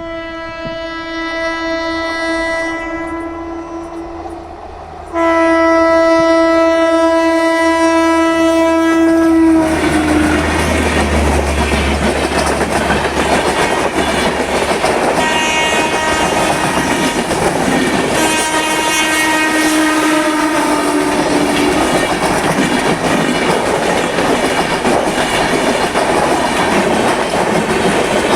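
Indian Railways electric locomotive's horn sounding two long blasts, the second louder, as the train comes up; then the train runs past close by with loud steady wheel-and-rail clatter from the coaches. A fainter horn blast sounds again about halfway through.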